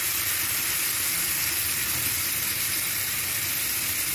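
Chopped onion, garlic and grated tomato frying in hot oil in an aluminium caldero, a steady sizzle.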